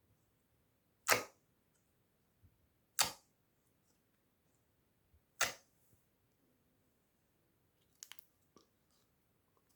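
Slime being worked by hand, letting out three sharp pops about two seconds apart, then a few softer clicks near the end.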